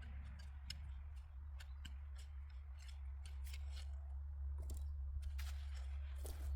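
Digging through soil in a potato bed: scattered small clicks and crackles, a few a second and irregular, over a steady low hum.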